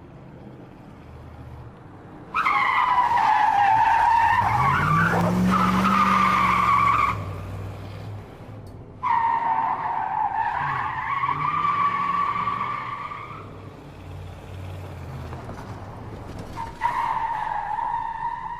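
Car tyres squealing in three long skids, each a wavering high screech, over a low engine sound that rises and falls in pitch beneath the first two.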